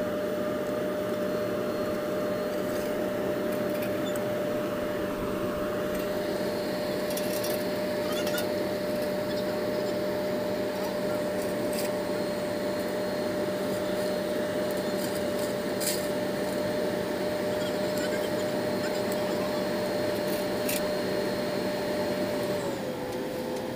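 Road paver's diesel engine running steadily, with a constant whine that dips slightly in pitch near the end. Scattered faint clicks and scrapes from shovels working the gravel are heard over it.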